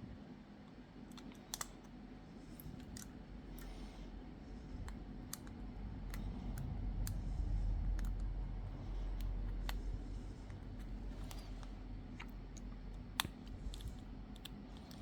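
Scattered small clicks and taps of tools and parts being handled on a smartphone under repair, as a new motherboard is fitted. A low rumble swells and fades in the middle.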